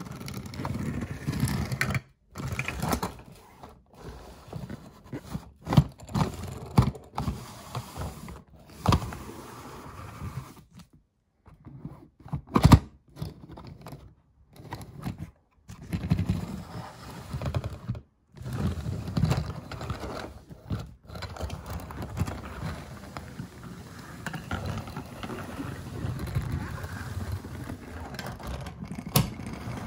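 Small diecast toy cars being pushed and rolled over a hard surface, clicking and knocking against each other and against their boxes. The noise breaks off abruptly several times.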